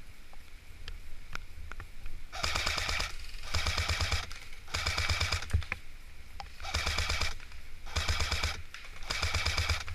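Airsoft gun firing six short full-auto bursts of rapid clicks, a little over a second apart, after a few single shots.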